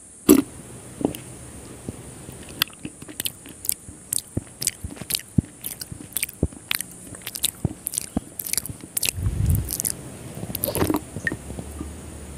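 Close-miked eating: a spoonful taken into the mouth at the start, then chewing with many small, sharp wet mouth clicks.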